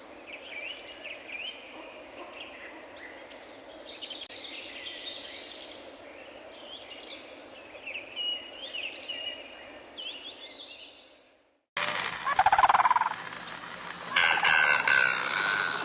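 Birds chirping and twittering over a steady background hiss, fading out near the end. This is followed by an abrupt, louder passage of different bird calls.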